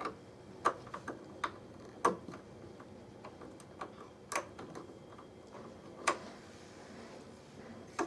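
Scattered light clicks and ticks from a screwdriver turning the wheel-adjustment screw on a Panasonic sliding-door roller unit. There are about a dozen irregular clicks, with a few louder ones at uneven intervals.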